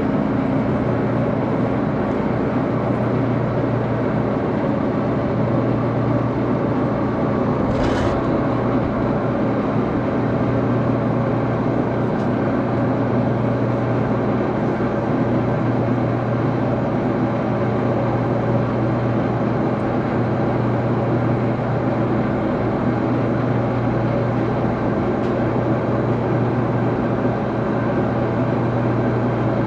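Axelson lathe running steadily, a constant motor hum under an even mechanical noise while a small screw is turned. A single short sharp click about eight seconds in.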